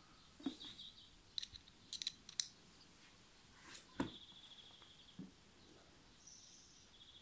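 Faint, scattered clicks and light taps of a screwdriver and other hard objects being handled over an open cardboard box. A bird chirps faintly a few times in the background.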